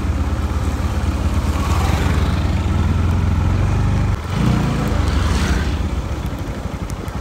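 Motorbike engine running steadily while riding on a rough dirt road, a low hum with a rushing noise over it. It breaks off briefly about four seconds in, then goes on slightly quieter.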